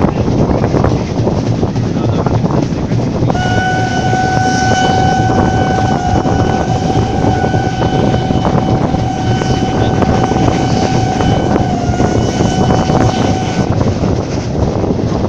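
Steam whistle of the Ty42 steam locomotive sounding one long, steady blast of about ten seconds, starting a few seconds in, over the running noise of the moving train and wind on the microphone.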